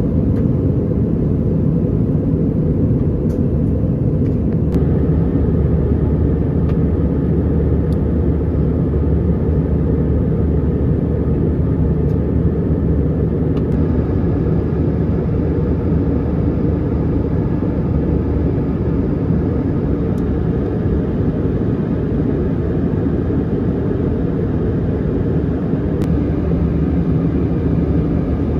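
Jet airliner engine noise heard from inside the passenger cabin: a loud, steady, deep rumble.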